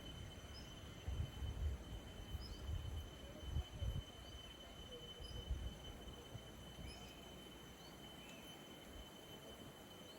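Quiet rural outdoor ambience: scattered short, faint bird chirps and a steady high insect-like tone. Low rumbling gusts of wind on the microphone come and go through the first half, then die down.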